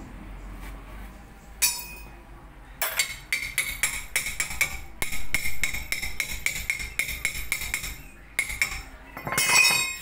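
Socket ratchet wrench on a brake caliper bolt clicking as the handle is swung back and forth: a single click, then a fast run of ringing metallic clicks for about five seconds, and a louder, quicker cluster of clicks near the end.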